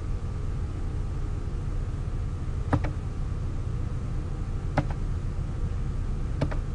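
Four sharp computer mouse clicks, the last two close together near the end, over a steady low background hum.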